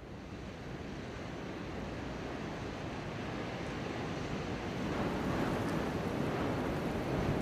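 Wind blowing steadily through a winter forest, fading in and slowly growing louder.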